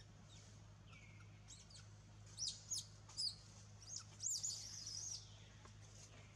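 Baby macaque screaming, begging its mother to carry it: a few short high-pitched squeals a little over two seconds in, then a longer wavering scream.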